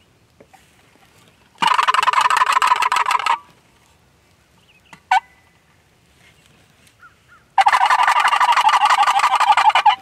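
Two loud turkey gobbles made by a hunter calling to wild turkeys, each a rapid rattling burst of about two seconds: one about a second and a half in, the other near the end. It is a challenge gobble meant to draw the toms in to fight. Between them comes a single short, sharp note.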